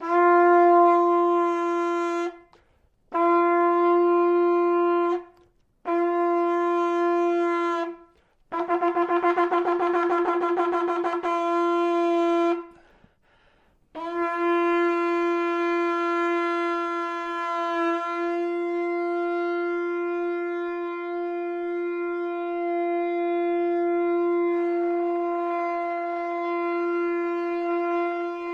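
Shofar blown in a sequence: three separate held blasts of about two seconds each, then a rapid fluttering blast, then one very long unbroken note that is held for the last half.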